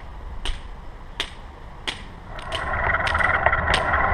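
Hiking pole tips clicking on asphalt about every two-thirds of a second. About two and a half seconds in, a loud rattling rolling noise from a manual wheelchair moving over the pavement close by begins, and the pole clicks go on over it, some in quick pairs.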